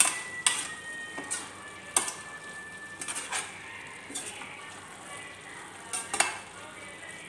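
Long metal spatula stirring and scraping diced bottle gourd in a stainless steel frying pan, with several sharp, irregular clinks of metal on the pan.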